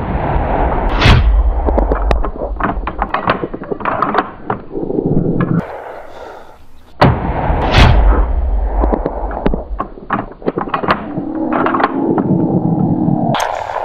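Two loud rifle shots, about a second in and again near eight seconds, amid a run of clicks and rattles and a heavy low rumble of wind on the microphone.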